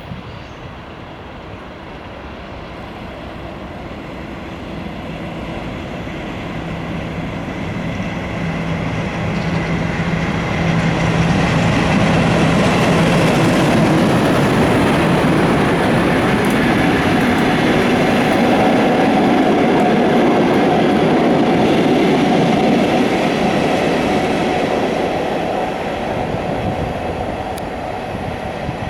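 Diesel train of a Class 50 locomotive and HST power cars passing at speed: diesel engine sound and wheel noise build up over about ten seconds, stay loud through the middle, then ease off toward the end.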